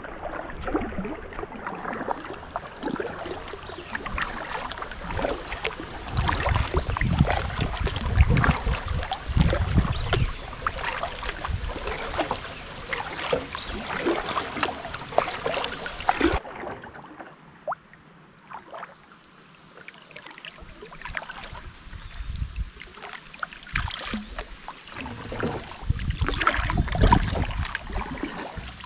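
Kayak paddling in rain: a paddle dipping and splashing, water sloshing against the kayak, and many small sharp taps of raindrops. It goes quieter for a few seconds past the middle, then the splashing picks up again near the end.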